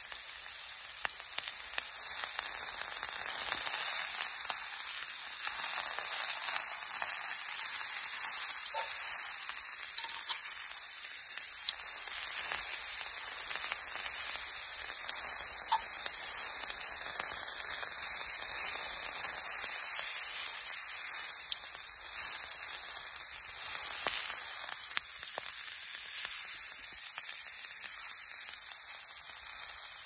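Food frying in a cast iron skillet: a steady sizzling hiss with scattered small crackles.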